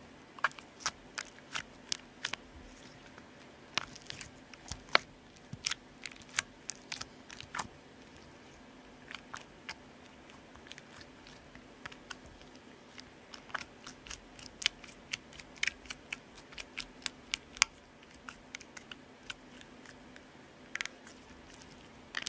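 Homemade PVA-and-borax slime being pressed and kneaded by fingers on a glass tabletop. It gives sharp, sticky clicks and pops in irregular flurries, with a few short lulls.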